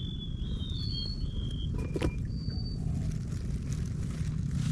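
Outdoor ambience: a low steady rumble under a few short, high whistled bird notes, most of them in the first half, with a single click about two seconds in.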